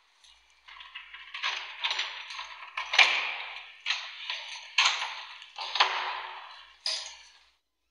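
Keys and a door lock being worked as an apartment door is unlocked and opened: a series of sharp metallic clatters and knocks, one every second or so, stopping shortly before the end.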